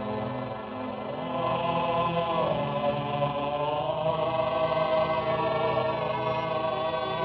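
Film score led by a choir singing long held notes, swelling louder about a second and a half in.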